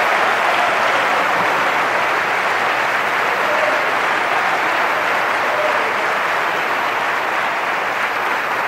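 Large crowd applauding steadily, a sustained wash of clapping that eases off slightly near the end.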